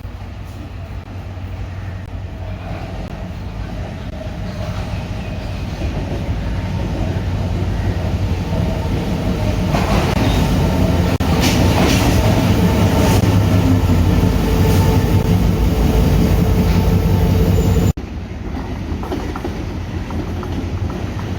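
Sri Lanka Railways Class M6 (EMD G22CW) diesel-electric locomotive running, its diesel engine's low, steady hum growing louder over about ten seconds. The wheels clatter over rail joints while it is loudest. Near the end it drops suddenly to a quieter level and begins building again.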